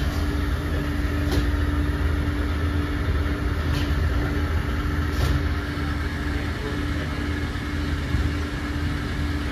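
Steady low rumble of a running vehicle, with a constant hum over it.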